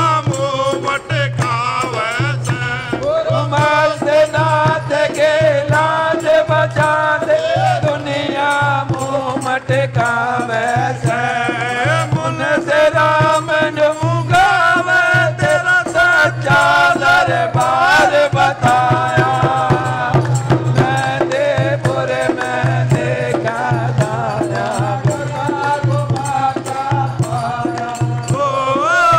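Hindu devotional bhajan music for Hanuman: a wavering melody over a steady, pulsing beat.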